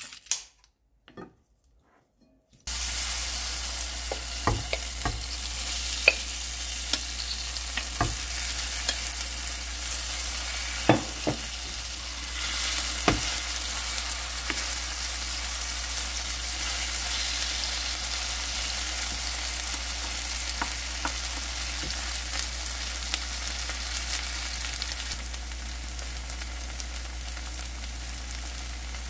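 Bean sprout pancake batter sizzling in hot oil in a frying pan. The sizzle starts abruptly about three seconds in, with a handful of sharp clicks of a wooden spatula and chopsticks against the pan, and eases slightly near the end.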